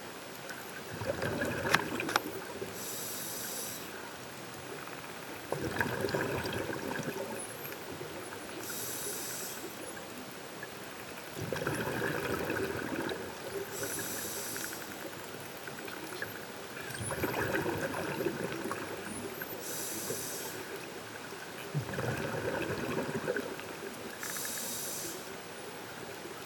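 Scuba diver breathing through a regulator, about one breath every five to six seconds. Each breath is a noisy rush of exhaled bubbles followed by a shorter, high-pitched inhalation hiss.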